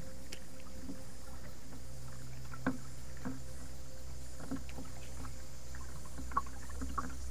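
Kayak paddling on calm water, with a few sharp taps and knocks on the hull, the loudest about two and a half seconds and six seconds in. A faint, steady high-pitched drone of cicadas runs behind.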